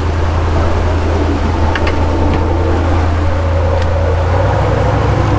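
Boat's engine running steadily, a loud low drone with wind and sea noise over it; the drone shifts slightly a little over four seconds in. A few light clicks sound over it.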